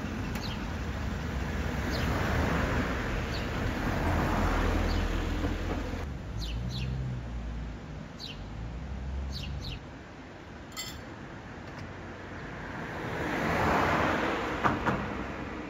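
Cars passing on the road, their tyre and engine noise swelling and fading twice, while small birds chirp on and off. A couple of sharp clicks near the end.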